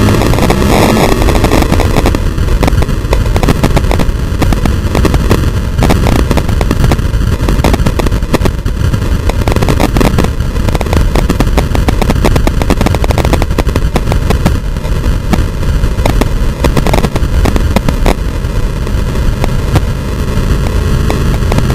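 Heavily distorted, crackling wind and road noise on a camera mounted under a moving 4x4 truck, loud and steady throughout.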